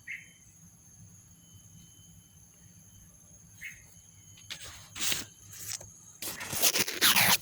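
A steady high insect drone runs throughout, with a short chirp twice. Loud bursts of rustling noise come about two-thirds of the way in and again near the end.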